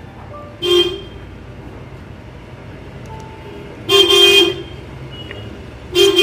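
Vehicle horn honking three times: a short toot just under a second in, a longer one about four seconds in, and a third starting near the end, over a steady low background hum.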